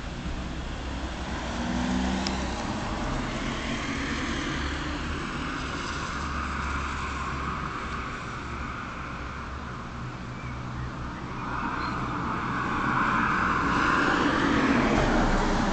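Motor vehicle noise from the street, engine hum with a rushing haze, swelling about two seconds in and louder again near the end.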